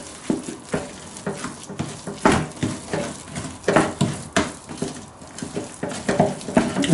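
Thick cheesy mashed potato being stirred and folded in a saucepan: irregular wet knocks and scrapes of the utensil against the pan.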